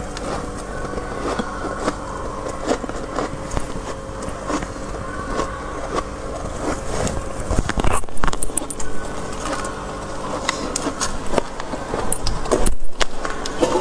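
Freezer frost being chewed, a run of irregular crisp crunches and crackles, louder in clusters about halfway through and again near the end, over a steady hum.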